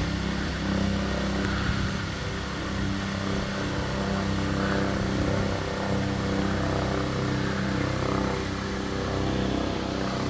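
An engine running steadily, a low hum with an even pitch over a background hiss.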